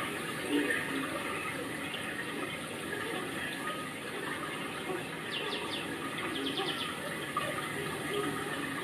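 Steady rain, an even wash of noise, with two short runs of rapid high chirps about five and six seconds in.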